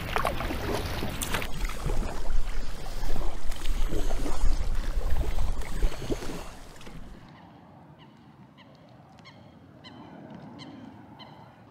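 Heavy rain, loud and pattering, that cuts off abruptly about seven seconds in. Then geese honking in a run of short calls.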